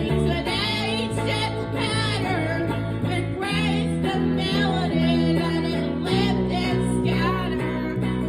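Live blues song: a woman singing over acoustic guitars played with reverb. The chord changes twice.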